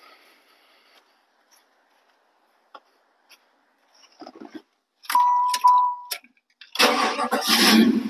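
Chevrolet Impala SS cold start: a few light clicks, two short electronic chimes, then the starter cranks for about a second and the engine catches and settles into a steady idle at the very end.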